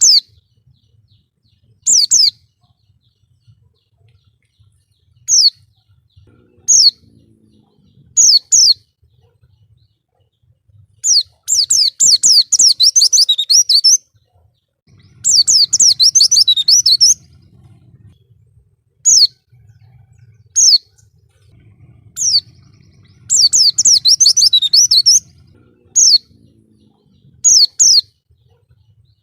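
White-eye (pleci) singing: short, high chirps every second or two, alternating with runs of rapid high twittering that last two to three seconds.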